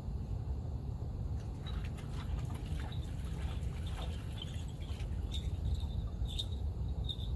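Water splashing and dripping at a rocky shoreline, in scattered small ticks, over a steady low rumble of wind on the microphone, with a few short high chirps near the end.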